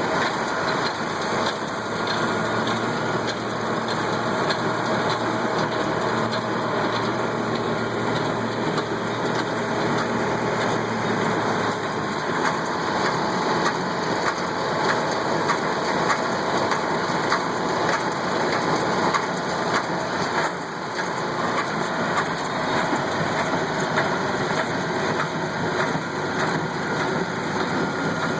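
Kubota tractor's diesel engine running steadily while pulling a working hay baler, with many faint clicks and clatters from the baler's mechanism.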